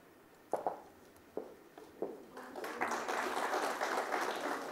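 Audience applauding, starting about halfway through after a few faint knocks.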